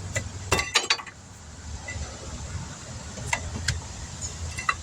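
Metal parts and tools clinking and tapping during brake caliper work: a quick cluster of sharp clicks near the start, then a few single clinks, over a low steady hum.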